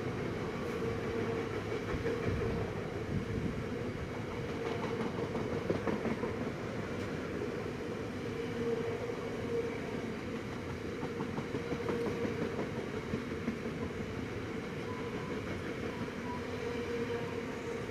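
A long rake of bogie tank wagons rolling past on the rails: a steady rumble of wheels on track with a humming note and faint clatter.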